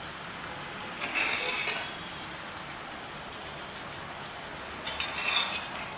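Whole fish frying in oil and masala gravy in a wide pan, sizzling steadily. Twice, about a second in and again near the five-second mark, there is a louder burst of sizzling and scraping as a steel spoon scoops the hot gravy and pours it over the fish.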